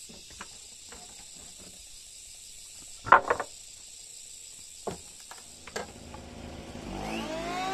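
Steel pry bar knocking and levering at a nailed wooden frame, a few sharp knocks, the loudest about three seconds in. Near the end an electric hand planer's motor starts and spins up with a rising whine.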